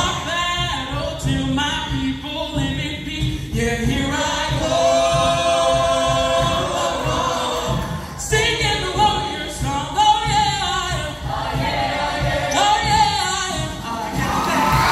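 A large high school show choir singing, with a live band combo accompanying on a steady beat. About a third of the way in the voices hold a long chord for a few seconds before moving on.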